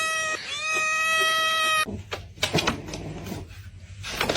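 Cat giving two long, steady meows, the second lasting about a second and a half, followed by a few soft clicks and rustles.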